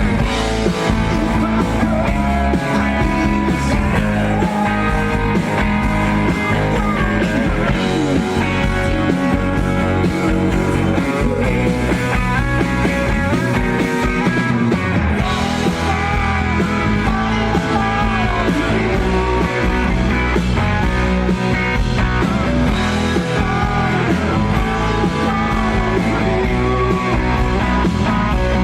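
Live rock band playing loud, steady guitar-led rock music, with a voice singing at times.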